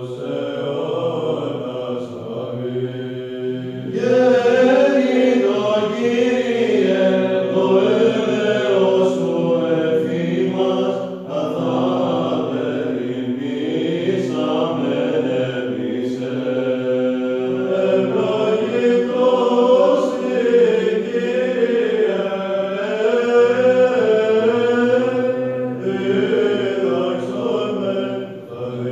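Greek Orthodox Byzantine chant by male voices: a winding melody sung over a steady held drone note (the ison). It grows louder about four seconds in.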